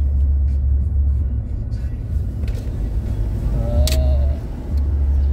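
Road and engine noise inside a moving car: a steady low rumble that swells and eases. About four seconds in there is a brief click with a short tone.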